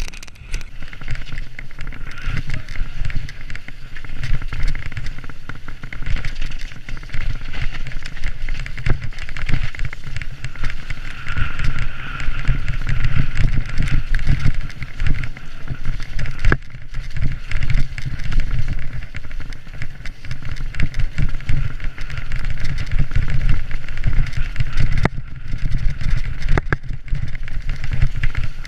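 Mountain bike descending a dirt forest trail at speed, heard from a camera mounted on the bike: a continuous rumble of wind and tyres on dirt, with rattling and knocks as the bike runs over rough ground.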